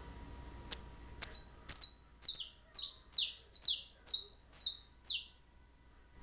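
Domestic canary calling in a quick series of about ten sharp, high notes, each sliding down in pitch, about two a second, then falling silent about a second before the end.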